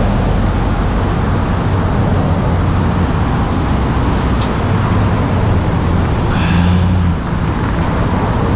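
Steady road traffic noise with a low engine hum that swells about six seconds in and eases off a second later.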